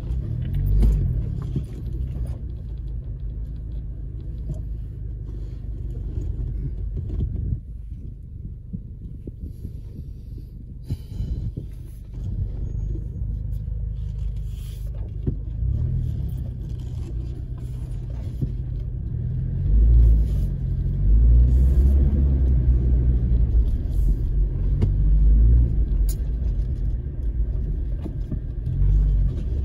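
Off-road 4x4's engine and drivetrain rumbling, heard inside the cabin while driving over sand dunes. The engine note wavers up and down, with louder surges from about two-thirds of the way through.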